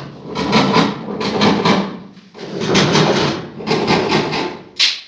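A hand blade tool scraping and cutting along the edge of a wooden door panel in quick repeated strokes. The strokes come in two spells of about two seconds, with a single short stroke near the end.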